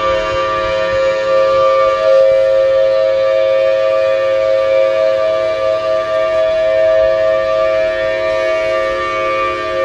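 Outdoor emergency warning siren sounding during a scheduled test, holding a steady, loud tone made of two close pitches with fainter overtones, with no rise or fall in pitch.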